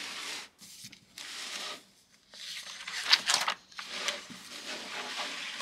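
Sketchbook paper being turned and smoothed flat by hand: rustling and rubbing in several strokes, loudest about three seconds in.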